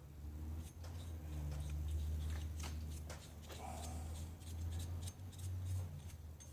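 Light clicks and rustling of small things being handled over a steady low hum that swells and eases.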